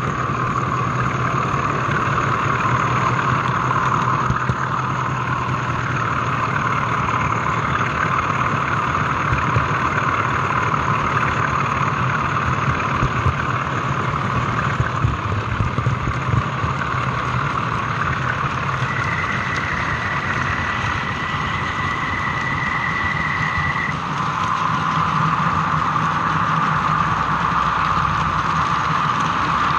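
OO gauge model train running along the track with the camera riding on it: a steady running noise of motor and wheels on the rails. A thin high whine joins in for about five seconds, a little past the middle.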